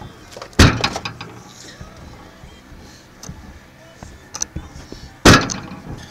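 Two sharp knocks, about half a second in and near the end, with small clicks and rattles between: handling noise from the wire crab pot and the camera mounted in it.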